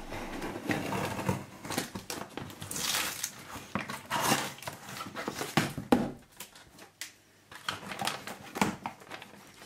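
Small Swiss army knife cutting through packing tape on a cardboard box, with irregular scraping, rustling and clicks of tape, cardboard and paper as the box flap is pulled open.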